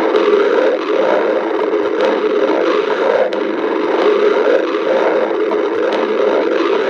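A hungry stomach growling loudly and without a pause.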